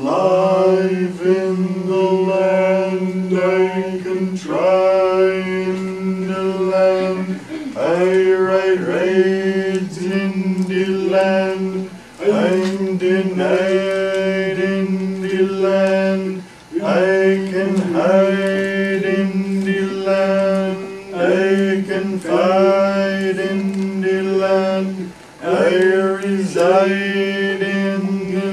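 Live band playing a slow, chant-like drone: one low note held through long phrases of about four to five seconds, each phrase opening with an upward slide.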